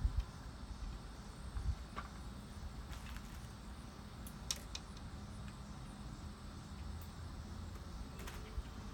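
A low, uneven rumble runs throughout, with a handful of short, light clicks scattered through it.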